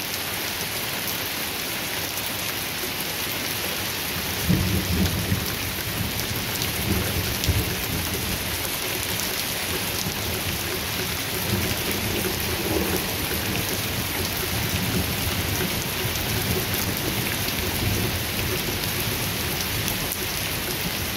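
Heavy rain of large drops falling steadily, a dense even hiss. About four and a half seconds in, a low, uneven rumble joins it and carries on underneath the rain.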